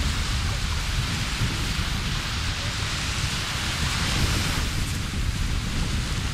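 Wind buffeting the microphone in a steady, gusty low rumble, over the even hiss of small waves washing onto a sandy beach.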